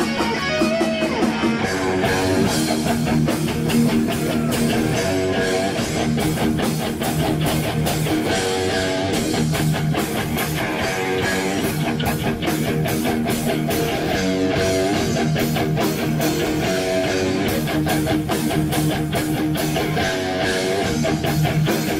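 Live rock band playing: electric guitar riffs over bass and a steady beat.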